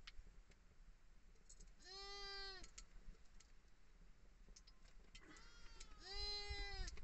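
Sheep bleating: two clear, even-pitched bleats, each under a second long, about two seconds and six seconds in, with a weaker call just before the second. A few faint clicks come in between.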